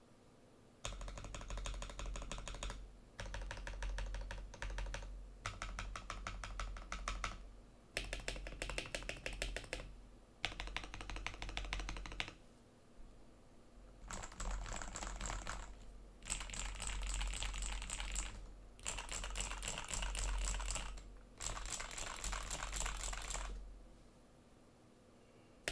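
Typing on a Redragon K606R Lakshmi mechanical keyboard with lubed Redragon Red linear switches, tape-modded and foam-filled case: about nine runs of fast keystrokes, each about two seconds long, with short pauses between.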